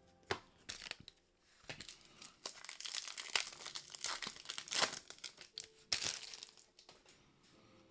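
Thin plastic crinkling in short, irregular bursts as a trading card is slid into a clear protective sleeve, with a few light clicks.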